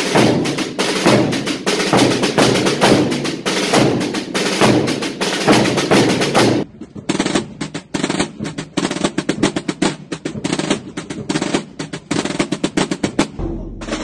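Aragonese Holy Week tambores and bombos drumming a fast, dense pattern of rapid strokes. The sound changes abruptly about six and a half seconds in, to a single tambor, and again near the end, when another tambor and bombo take over.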